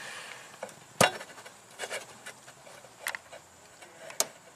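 Hands working the plastic electrical connector off a fuel pump module: scattered clicks and knocks with rubbing, a sharp click about a second in and another near the end.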